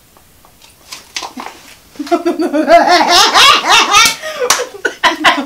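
Two women laughing loudly and shrieking, bursting out about two seconds in after a near-quiet start with a few faint clicks, in reaction to a foul-tasting jelly bean.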